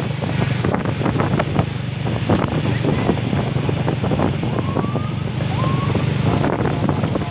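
A vehicle engine idling steadily, with wind buffeting the microphone. Two short rising tones come in a little past the middle.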